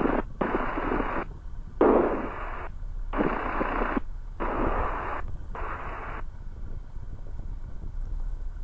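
Aircraft radio or intercom audio in the headset: five bursts of static-like hiss, each about a second long and cut on and off sharply, stopping about six seconds in. A faint steady low hum runs underneath.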